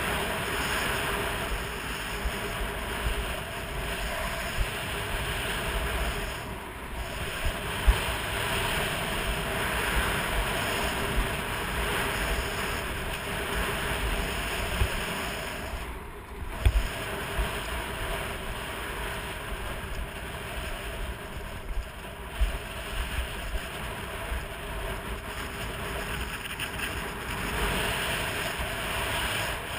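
Skis gliding and carving on groomed piste snow, a steady scraping hiss mixed with wind buffeting the camera's microphone. Two sharp knocks stand out, about eight and sixteen seconds in.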